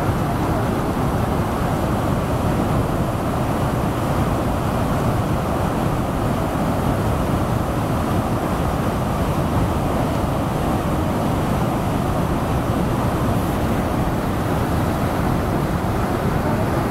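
Devi's Fall, a waterfall plunging into a narrow rock gorge: a steady, unbroken rush of falling water, heaviest in the low range.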